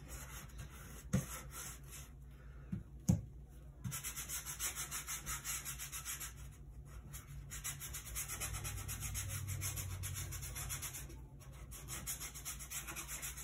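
A stiff-bristled 1-inch flat brush scrubbing oil paint onto a gessoed panel in quick, rhythmic back-and-forth strokes, a dry scratchy rubbing. A few light knocks come between about one and three seconds in, before the steady stroking sets in.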